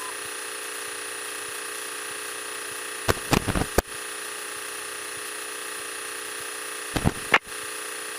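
Light training airplane's engine and propeller droning steadily over the cockpit headset intercom, a even hum with fixed tones. Two short bursts of clicks and crackle break in about three seconds in and again about seven seconds in.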